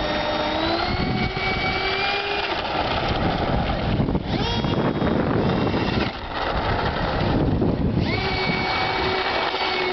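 Electric ducted fan of a small RC craft whining, rising in pitch as it is throttled up in the first second, dropping away in the middle and rising again about eight seconds in, over a steady rush of air.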